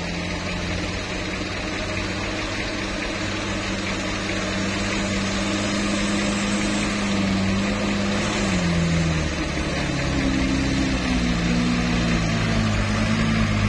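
Engine of a light truck loaded with oil-palm fruit bunches, labouring up a soft dirt climb and growing louder as it approaches. About eight seconds in the engine note drops, then steadies at a different pitch.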